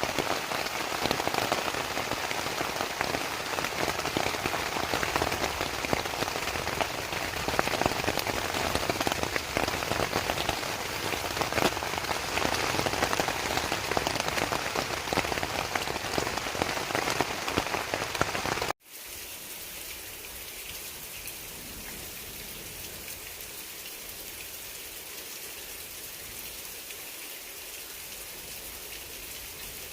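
Heavy rain falling steadily in a dense, loud hiss. About two-thirds of the way through it cuts abruptly to a quieter, steadier hiss of rain.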